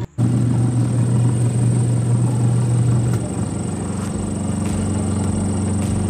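Sharp twin-tub washing machine running, its motor and belt drive turning the tub with a steady low hum; the hum changes slightly about three seconds in. The motor belt has just been tightened, so the tub is driven at full strength.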